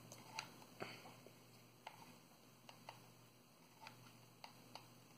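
Near silence with about eight faint, scattered clicks: a hot glue gun and small metal nuts being handled against a skateboard-type wheel bearing while the nuts are glued on.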